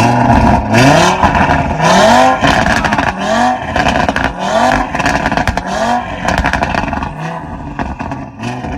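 The freshly started, decatted stage 2 Audi RS3's 2.5-litre turbo five-cylinder (DAZA) is blipped in about nine quick revs, each pitch rising and dropping back, with crackles in between. The blips die down to a quieter, steadier running near the end.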